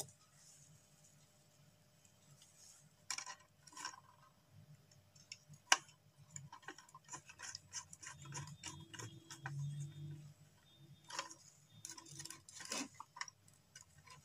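Faint, scattered clicks and light scraping of a wire being worked into the screw terminals of a switch and socket on a wiring board, with one sharper click a little before halfway.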